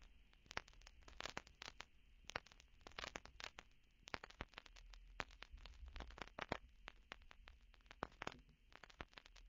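Near silence with faint, irregular crackling clicks, a few to several a second, over a low hum.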